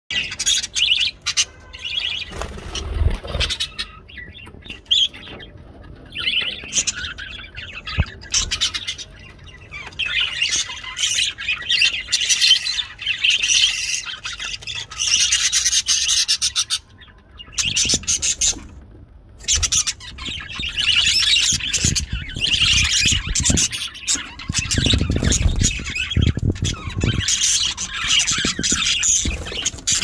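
Budgerigars chattering and warbling: a dense stream of quick chirps and squawks, broken by a few short pauses. A few low thumps come about three seconds in and again near the end.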